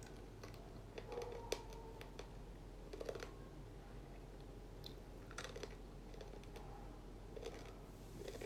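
Faint, irregular light taps and clicks of fingers on a device, like typing, a handful of them spread a second or more apart.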